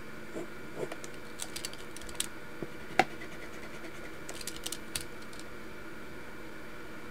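Pilot FriXion Ball gel pen tip ticking and scratching short strokes on paper: scattered light ticks in small clusters, with one sharper click about three seconds in, over a faint steady background hum. The ticks stop about five seconds in.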